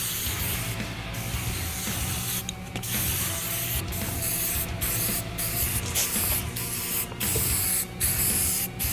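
Paint spray hissing in a series of passes with brief breaks between them, primer going onto a sanded differential cover.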